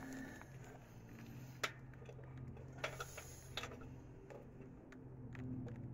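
A handful of sharp, irregular metallic clicks and taps as hands and tools work at a stuck oil filter under a small car, the loudest about a second and a half in, over a low steady hum.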